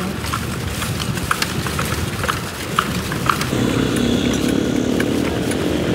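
A horse's hooves clip-clopping on a paved road as irregular sharp clacks, likely a kalesa horse. About halfway in, the steady hum of a motorcycle or tricycle engine rises underneath.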